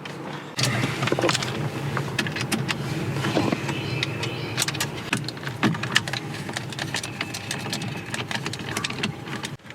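Phillips screws being backed out and plastic dash trim and radio parts being handled, many small clicks and knocks, over a steady low hum that starts about half a second in and stops just before the end.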